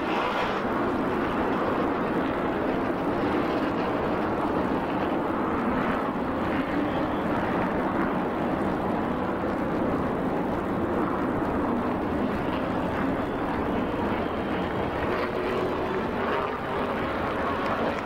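A field of NASCAR Modified race cars' V8 engines running on the track, heard from the grandstand as one steady, continuous blended engine noise.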